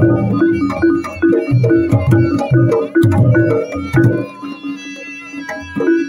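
Javanese gamelan music for reog dancing: a hand-beaten kendang drum under quick, repeated ringing notes from gong chimes in a steady rhythm. It drops quieter for about a second and a half near the end, then picks up again.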